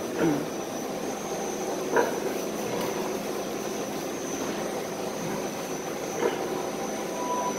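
Steady mechanical drone of pig-barn ventilation fans with a thin high whine through it, and a few brief sharper sounds, the loudest about two seconds in.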